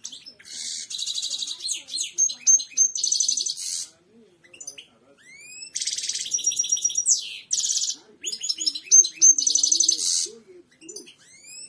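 European goldfinch singing: two long phrases of fast twittering with trills and high tinkling notes, separated by a few short rising call notes, with more rising calls near the end.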